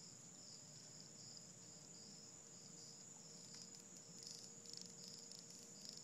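Faint chorus of night insects: a steady high-pitched trilling with a slight pulse, over a faint steady low hum.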